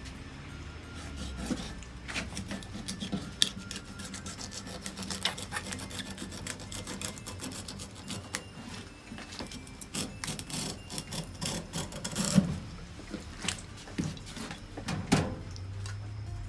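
Kitchen knife scraping and clicking along a conger eel's backbone and against a wooden cutting board as the eel is split open from the back: irregular rasping scrapes and small taps, with a sharper knock about three and a half seconds in and another near twelve seconds.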